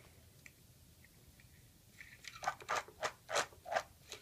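A new diaphragm being screwed by hand onto a diaphragm valve's stainless-steel actuator. After about two seconds of quiet comes a run of short clicking scrapes, about three a second, as it is turned on the thread.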